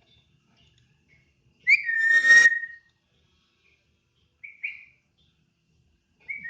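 Lory parrot whistling: a level whistle about two seconds in that turns into a harsh squawk, then two short chirps near the five-second mark and another whistle starting at the very end.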